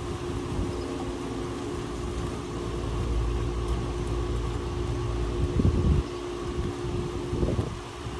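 Strong wind buffeting the microphone as an uneven low rumble, with a steady machine-like hum running underneath.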